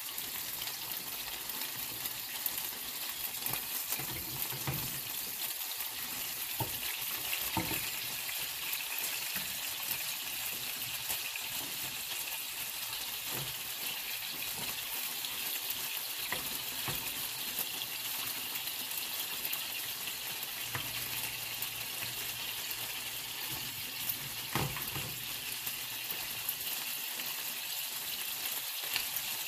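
Ilocos longganisa sausages sizzling steadily as they fry in a nonstick pan. A few sharp clicks come from metal tongs and a knife against the pan as the sausages are turned and cut.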